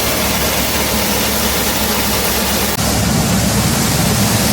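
Tractor engine running steadily to drive a 72-foot grain auger through its PTO, a low drone under a broad machinery hiss. There is a brief break about three seconds in, after which the low drone is louder.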